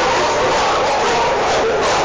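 Many kennelled shelter dogs barking at once, blending into a loud, continuous din.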